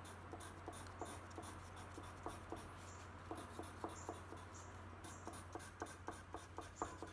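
Colored pencil scratching over watercolor-painted paper in quick, short cross-hatching strokes, a few a second, faint and irregular.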